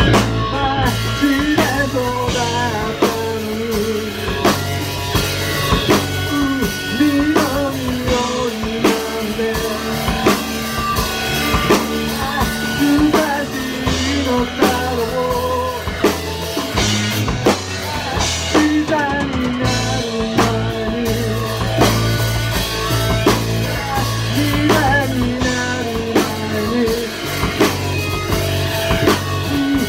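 A rock band playing live: electric guitar, bass guitar and a drum kit keeping a steady beat, with a voice singing at times.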